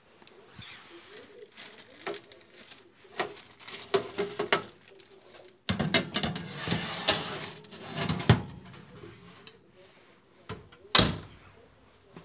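Metal baking tray being slid out of an oven, with clicks and knocks, then a stretch of clatter and rustling of the tray and paper. Near the end the oven door bangs shut once, sharply.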